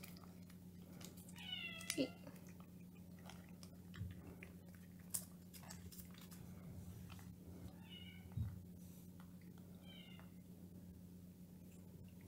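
Domestic cat meowing three times: a longer meow about two seconds in, then two short ones near the eight and ten second marks.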